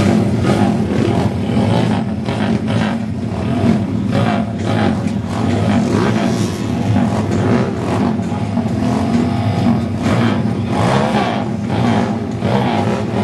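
Motor vehicle engines revving up and down without a break, their pitch rising and falling as they accelerate and back off around the track.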